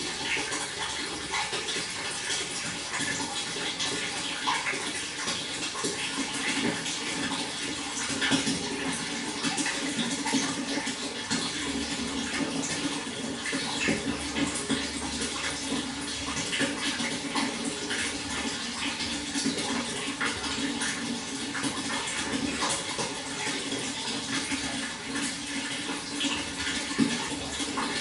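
Water flowing steadily, a continuous rush with many small splashes and trickles throughout.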